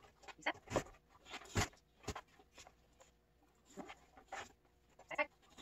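A dog stepping about on a rubber floor mat, its paws and nails making scattered soft taps and scuffs, a few of them sharper.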